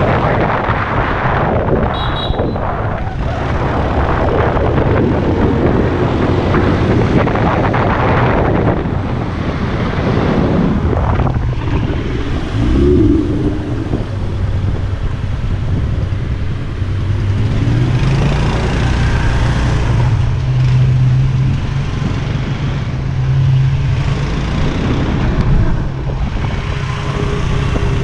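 Supercar engines running loud: loud engine and road noise for the first several seconds, a brief rev near the middle, then a deep steady engine drone at low revs.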